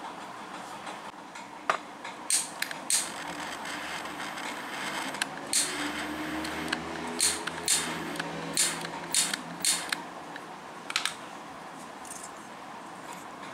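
Handheld butane jet-torch lighter: a string of sharp clicks, with the torch flame hissing low for a few seconds in the middle.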